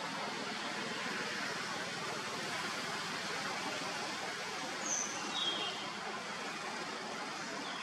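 Steady outdoor background hiss with no clear single source, and two short high chirps a fraction of a second apart about five seconds in.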